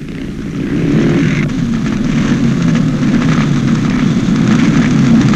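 Engines of a pack of racing motocross motorcycles, a dense steady engine noise that grows louder over the first second and then holds.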